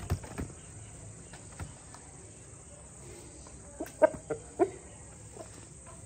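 Crickets chirping, a steady high trill, with a few short sharp taps about four seconds in.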